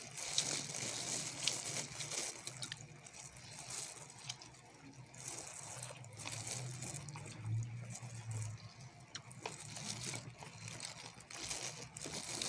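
Eating sounds of chicken wings being bitten and chewed: irregular small wet mouth clicks, smacks and crackles, with the crinkle of a disposable plastic glove handling the meat.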